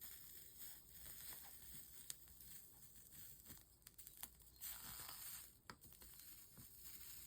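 Faint high-pitched sizzling hiss of a soldering iron melting solder and flux along a stained-glass seam, swelling about five seconds in, with a few small ticks.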